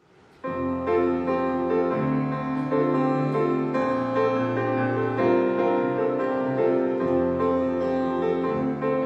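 Instrumental keyboard music starting about half a second in, with sustained chords that change every second or so.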